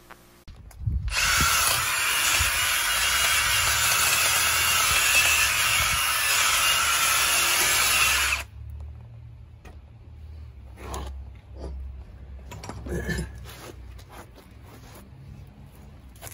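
Aerosol spray can hissing steadily for about seven seconds as it is sprayed onto a car's bare rear wheel hub, then cutting off suddenly. Light clicks and knocks of handling follow.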